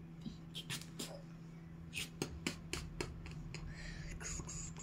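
Cardboard jigsaw puzzle pieces clicking and tapping as a hand picks them up and presses them into place on a puzzle board. It is a run of irregular light taps, busiest about two to three seconds in, over a steady low hum.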